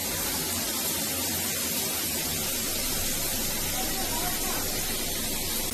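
Water spraying steadily from a shower head, an even hiss.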